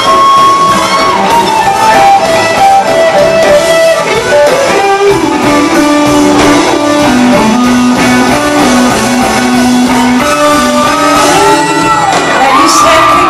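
Live blues-rock band playing, led by electric guitar in long held notes that bend and slide in pitch, over the full band, recorded from the audience in a concert hall.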